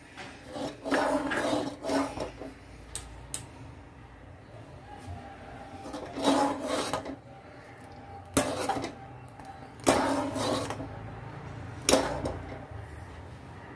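A steel spoon scraping and knocking against the sides and bottom of an aluminium pot while stirring thick, simmering milk. The scrapes and clinks come in several separate bouts over a low steady hum.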